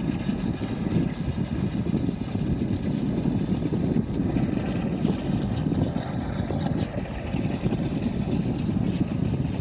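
Small petrol engine running steadily, driving a water pump with hoses laid into the dig hole. A few faint scrapes and clicks come from a shovel in wet sand.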